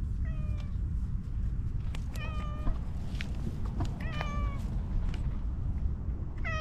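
A stray cat meowing four times, about two seconds apart, each call short and dropping slightly in pitch, as it comes up to be stroked.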